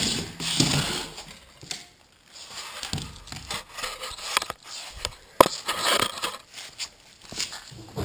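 Rustling, scuffing and knocking from handling, as the camera is carried and set down on a concrete floor, with scattered knocks and one sharp click about five and a half seconds in.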